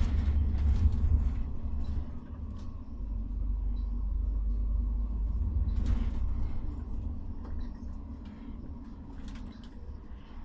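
Coach bus driving along the road, heard inside the cabin: a steady low rumble of engine and road with a few short knocks, easing off in the last few seconds.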